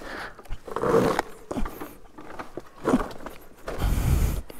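Talaria electric dirt bike's motor whining in short bursts of throttle as the bike rides over fallen trees and branches.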